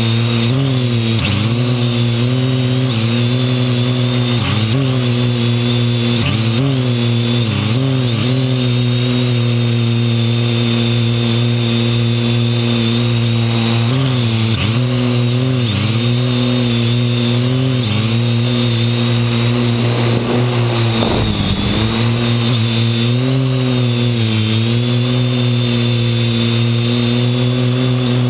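Parrot AR.Drone quadcopter's four electric motors and propellers running close up in flight: a steady pitched hum. Its pitch dips briefly and recovers again and again as the drone corrects its flight, with a short rough patch about three quarters of the way through.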